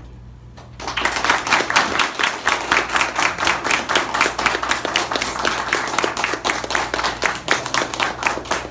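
A small audience applauding, the clapping starting suddenly about a second in and going on steadily.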